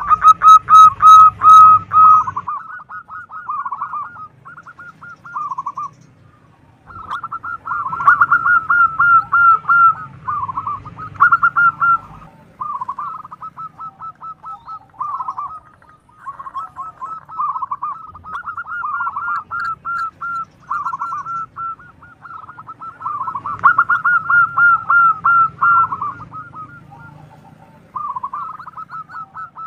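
Zebra dove (perkutut) cooing: phrase after phrase of rapid, short, bubbling coos, some phrases loud and others quieter, with a few brief pauses between them.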